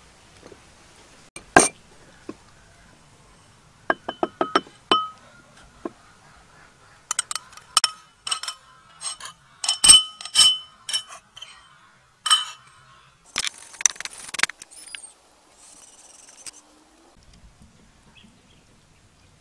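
Sharp clinks of kitchen utensils knocking against a hard container, each with a short bright ring, in scattered runs. A brief scraping rustle follows a little past halfway.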